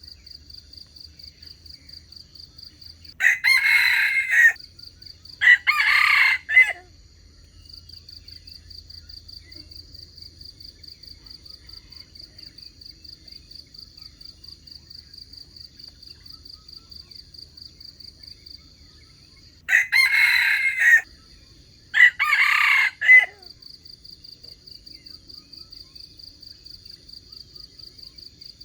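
A wild junglefowl rooster crowing twice, about sixteen seconds apart; each crow comes in two loud parts. A steady pulsing insect buzz, like crickets, runs underneath.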